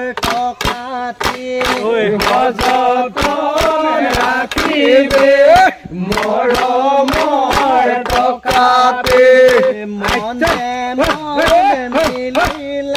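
Group of voices singing a Bihu song, with sharp, regular beats about three a second keeping time.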